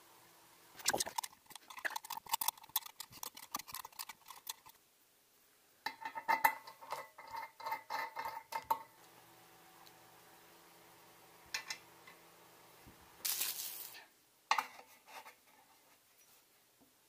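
Small brass and steel parts of a model steam engine kit clinking and rattling as they are handled and screwed together. Two runs of quick metallic clicks with a ringing tone, then a few lighter clicks and a short scratchy sound near the end.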